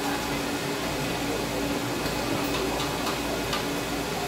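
Steady background hum and noise of a market hall, with a few faint sashimi-knife taps on a wooden cutting board between about two and a half and three and a half seconds in.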